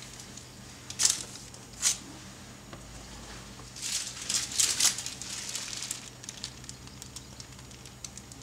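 Plastic piping bag crinkling and rustling as it is handled and squeezed: two sharp crackles about a second in and just before two seconds, then a denser run of crinkling in the middle, fading to scattered small ticks, over a faint steady hum.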